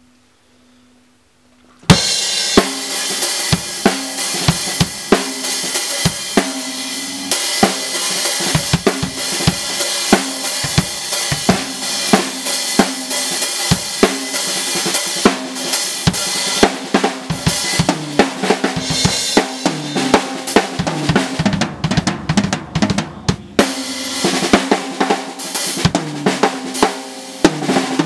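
Drum solo on an acoustic drum kit: fast, busy playing on snare drum, bass drum and cymbals, starting with a loud hit about two seconds in.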